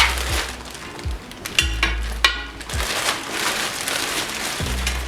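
Plastic packaging crinkling and rustling as a ring light is unwrapped, with a few sharp clicks, over background music with a steady bass beat.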